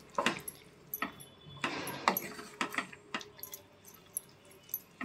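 Wooden spatula stirring thick, just-cooked foxtail millet upma in a pan: faint soft scraping with scattered light taps of the spatula against the pan, one longer scrape about two seconds in.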